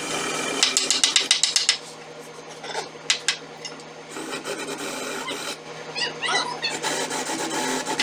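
12 V cordless drill with a larger bit countersinking screw holes in plywood: a rapid grating chatter, about ten clicks a second, in short spells, loudest in the first two seconds.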